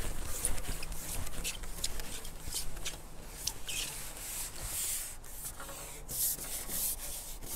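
Irregular rustling and rubbing close to the microphone, a run of short uneven scrapes: handling noise.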